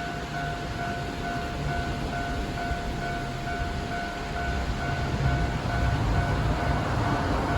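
Japanese railway level crossing's electronic warning bell ringing in an even, repeating pattern, over the rumble of an approaching Kintetsu Osaka Line train that grows louder from about five seconds in.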